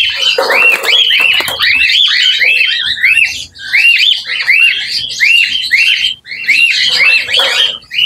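Cockatiel squawking without pause while it is caught and held by hand: a fast run of short, arched screeching calls, about two a second, broken twice by harsher raspy squawks.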